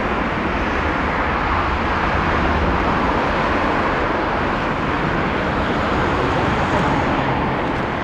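Airbus A350-1000's Rolls-Royce Trent XWB jet engines running steadily as the airliner moves along the ground, a constant even noise.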